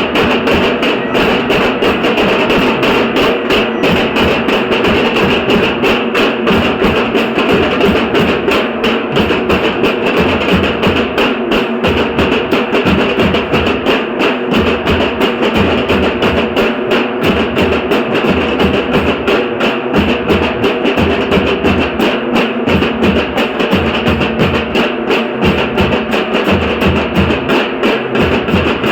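Dhol-tasha ensemble playing: big barrel dhol drums and tasha drums beating a fast, dense rhythm that keeps going without a break.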